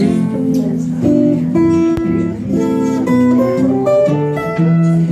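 Acoustic guitar and archtop electric guitar playing live together, picking out a quick melody of single plucked notes over chords.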